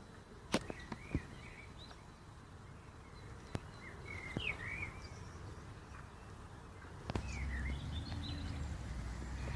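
Small birds chirping in short, quick twitters, in three brief groups. A few sharp clicks come about half a second, a second and three and a half seconds in, and a low rumble starts about seven seconds in.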